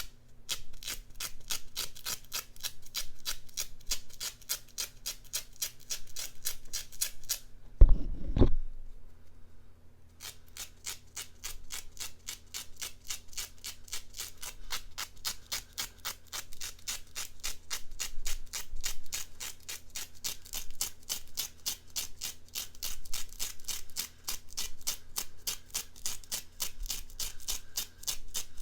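Rapid, evenly spaced strokes from an ASMR trigger, several a second. They break off with a single thump about eight seconds in and start again about two seconds later.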